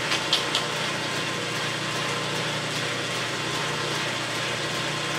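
South Bend 13-inch metal lathe, its VFD-driven motor, belts and spindle running steadily at top speed, about 880 RPM. A few light clicks come just after the start.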